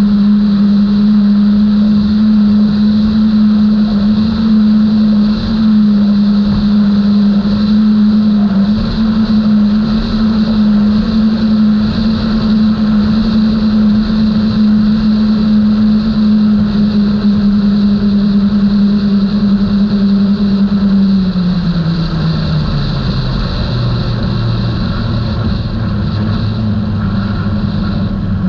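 Outboard engines of a Skater 32 catamaran running at a steady high pitch at speed, over a loud rush of wind and water. About 21 seconds in, the engine note falls steadily as the throttle comes back and the boat slows.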